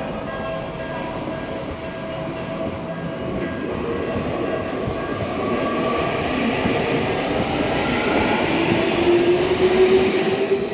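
Tokyu 7000 series electric train pulling out of the station, its VVVF inverter motor whine rising slowly in pitch and growing louder as it gathers speed.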